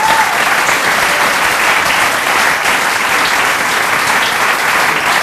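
Theatre audience applauding steadily at the end of a performance: a dense, even mass of many hands clapping.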